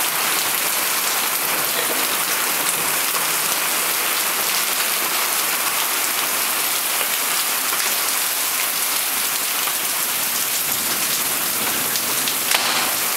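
Torrential rain falling steadily, hissing on wet paving and roofing, briefly heavier near the end.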